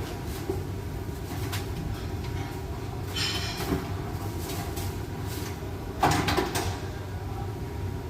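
Cupboard or cabinet doors being opened and shut in a few knocks and clatters, the loudest cluster near the end, over a steady low hum.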